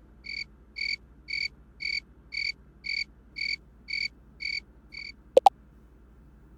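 Cricket chirping sound effect: ten evenly spaced short chirps, about two a second, the stock sound of an awkward silence. A sharp double click comes near the end, louder than the chirps.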